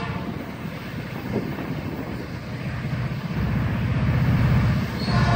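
Approaching diesel freight locomotive, an SD40 with an EMD V16 two-stroke engine, running with a low rumble that grows louder. Its multi-chime air horn begins to blow about five seconds in.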